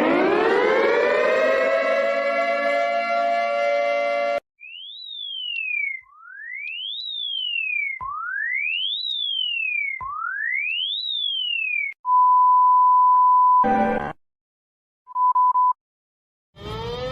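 A sequence of electronic emergency-alert tones. A glide rises into a steady chord of many tones, then a siren-like tone sweeps up and falls back four times, about two seconds per sweep. A steady high beep and a short burst follow, then silence, a brief beep, and near the end another chord of tones that bends up and down.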